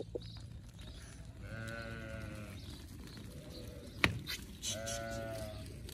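Lambs bleating: two long bleats, one about a second and a half in and another near the end, with a single sharp knock between them.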